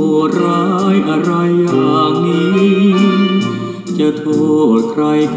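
A Thai song playing through the built-in speakers of a Thomas Old Days retro music centre, with singing over plucked guitar and a steady beat.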